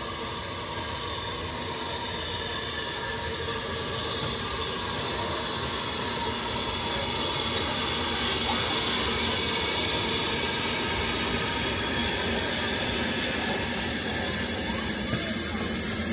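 BR Standard Class 4MT 4-6-0 steam locomotive No. 75069 slowly hauling its coaches past, with a steady hiss of steam and the run of the wheels on the rails. It grows louder as it nears, then eases slightly near the end.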